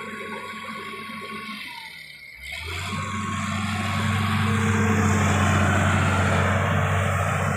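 A boat's engine drone starts suddenly about two and a half seconds in, grows louder over the next two seconds, then runs steadily.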